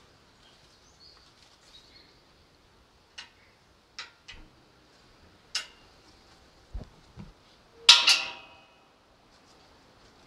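Footsteps and a few sharp clicks, then about eight seconds in a tubular metal kissing gate swings and clangs against its frame, with a short metallic ring after the clang.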